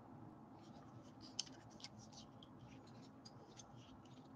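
Near silence, with faint scratches and a couple of light clicks from a SOG Trident folding knife being handled in the hand.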